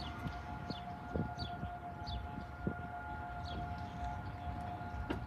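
Federal Signal Modulator II 3012B outdoor warning siren sounding a steady tone during a siren test. Short high chirps repeat above it about every 0.7 s.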